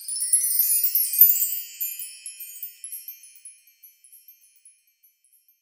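Wind-chime shimmer used as a logo sting: a dense cascade of high tinkling notes that thins into scattered single tinkles and fades out by about five seconds in.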